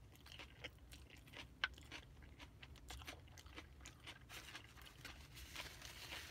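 Quiet close-up chewing of a mouthful of shrimp fajita bowl (rice, shrimp, peppers): many small wet mouth clicks and light crunches. Near the end a paper napkin brushes across the mouth with a soft rustle.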